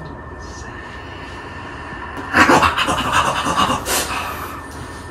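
Knife slicing through the packing tape on a cardboard graphics-card box: a scratchy cut of about two seconds, starting a little over two seconds in.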